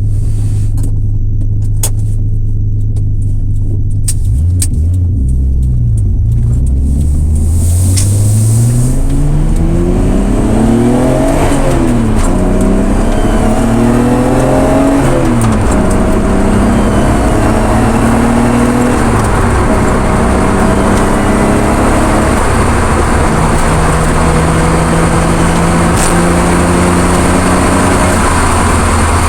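Nissan Skyline GT-R (BNR32) RB26DETT twin-turbo straight-six accelerating: the engine note climbs in pitch and drops twice at gear changes, then runs steadier. The owner hears an abnormal noise, which he is not sure of, from around the left side of the engine bay from about 4000 rpm.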